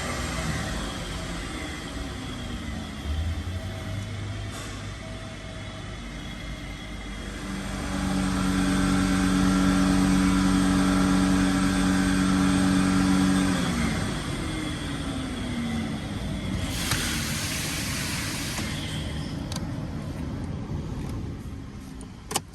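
Car engine running, brought up to a steady higher speed for several seconds near the middle and then sliding back down to idle, as in an alternator charging test. A brief rush of noise comes later, and a sharp click near the end.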